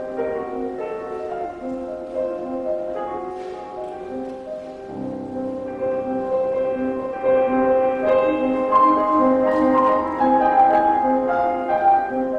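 Piano playing a slow classical-style piece in sustained chords, growing louder about eight seconds in.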